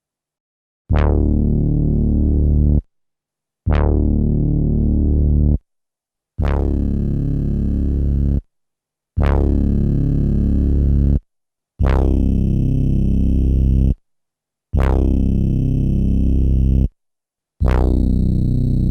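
Synthesizer bass sample played back from an SP1200 12-bit sampler: the same low note sounded seven times, each about two seconds long with a bright attack that quickly dulls, separated by short silences. The later notes keep more of a buzzy top end.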